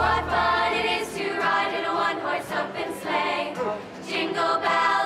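A girls' school choir singing a Christmas carol, many young voices together.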